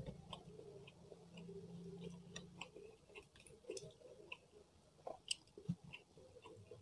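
Faint, close-miked eating sounds: soft, sticky clicks from chewing and from fingers tearing apart fried salted fish and working it into rice, with a couple of sharper clicks about five seconds in.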